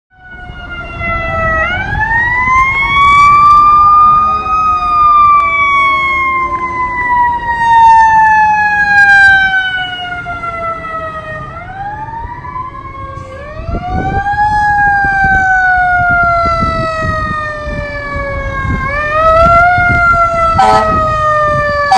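Fire-apparatus sirens wailing as a fire squad pickup and a fire engine respond: each wail climbs quickly and then falls slowly over several seconds. From about halfway on, two sirens overlap at different pitches, over the rumble of the trucks on the road.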